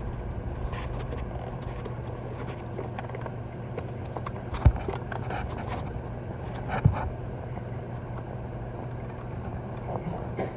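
Scattered light clicks and clinks of hand work on car parts under the hood, with two sharper knocks, one about halfway through and one a couple of seconds later, over a steady low hum.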